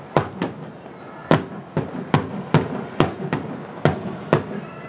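Fireworks finale: aerial shells bursting in a rapid barrage of sharp bangs, about two a second at uneven spacing.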